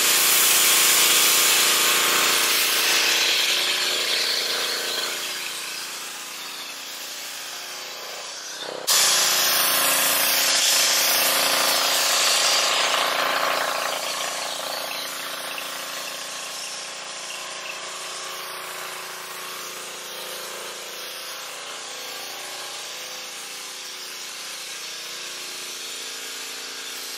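Pressure-washer foam cannon spraying pre-wash foam onto a truck: a loud, steady hiss over a steady hum. The hiss jumps louder again about nine seconds in, then slowly eases off.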